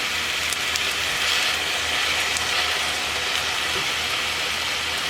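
Ground beef sizzling steadily as it browns in a hot cast iron skillet over medium-high heat, with a few faint crackles.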